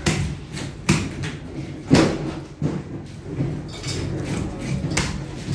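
A knife chopping through fish on a wooden cutting block, about five sharp, irregular strikes over a low market hubbub.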